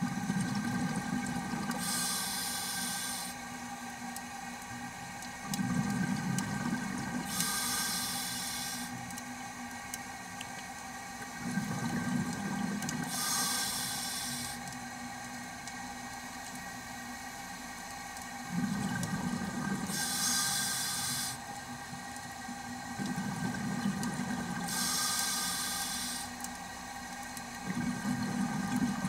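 Scuba diver's breathing heard underwater: a hissing inhale through the regulator alternating with a rumbling burst of exhaled bubbles, about every five to six seconds, six breaths in all, over a faint steady hum.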